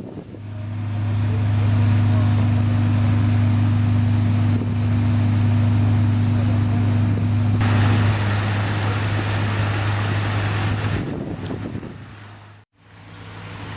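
An engine running at a steady speed with a low, even hum. A hiss grows louder about eight seconds in, and the hum stops about three seconds later.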